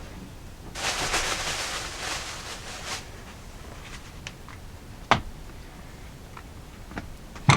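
About two seconds of rustling, then a few light clicks and knocks of kitchen items being handled.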